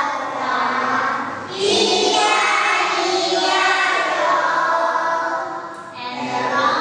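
A group of young children singing together in unison, with brief pauses about a second and a half in and near the end.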